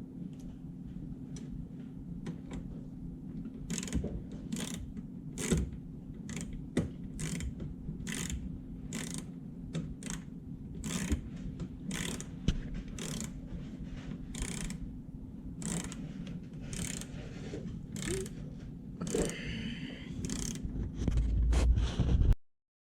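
Hand ratchet driving screws back into the oven's control panel, its pawl clicking about once a second in a steady run over a steady low hum. A louder low rumble builds near the end, then the sound cuts off abruptly.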